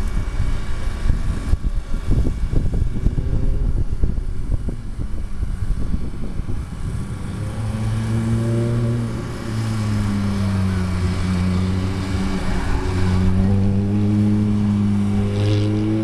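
Ferrari F430's V8 engine being driven hard around an autocross course, its pitch rising and falling several times as the car accelerates and slows between the cones, clearer and louder in the second half as it nears. A gusty low rumble covers the first half.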